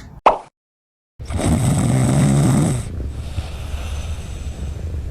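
Cat snoring: a brief blip and a moment of silence, then, about a second in, one long, loud snore with a low pitch, followed by quieter breathing out.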